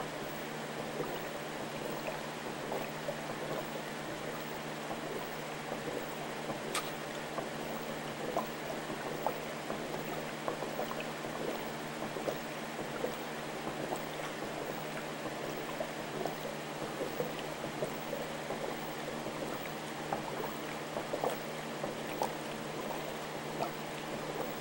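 Water bubbling and trickling in an aquarium tank, with many small plops over a steady low hum.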